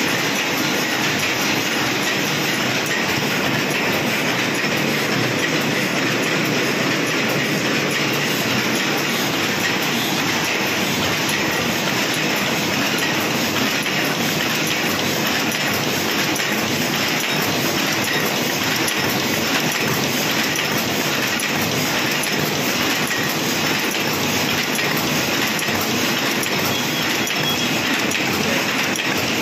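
High-speed paper cup forming machine running at full speed, a steady, dense mechanical clatter with no pauses.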